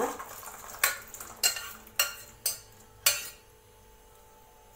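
Stainless steel spoon clinking against a steel pressure cooker and bowl as cooked chickpeas are scooped out: about five sharp clinks over the first three seconds.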